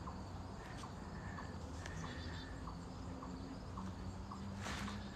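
Faint outdoor ambience: a short, quiet chirp repeating roughly every half-second to second over a low steady hum, with a brief rustle near the end.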